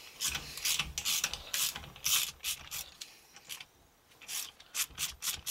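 Hand ratchet clicking in short irregular runs as it backs out the bolts of the front wheel hub's centre piece, with a brief pause a little past the middle.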